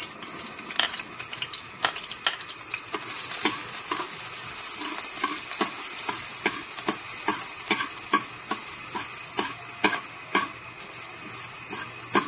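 Minced garlic sizzling in hot oil in a metal wok, with a metal ladle scraping and knocking against the pan about twice a second as it is stirred.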